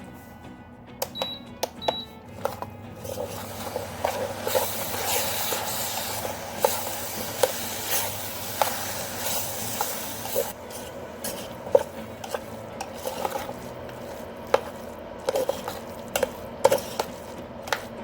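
A spoon stirring a thick onion-tomato masala with spice powders and salt in a frying pan, clinking and scraping against the pan at irregular intervals. A sizzling hiss from the frying masala is strongest from about four to ten seconds in.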